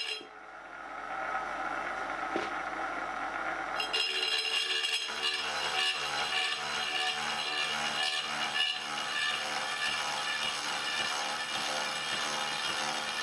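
Elliott Junior horizontal milling machine running a slitting saw through a small metal clamp body, cutting its split, with background music playing.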